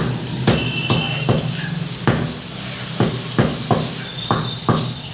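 Large butcher knife chopping chicken breast into pieces on a wooden log chopping block: about a dozen sharp chops, roughly two a second, some in quick runs.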